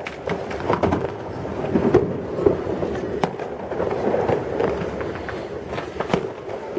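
New Year fireworks going off around the city: irregular sharp bangs and crackles over a steady rumble of continuous distant explosions.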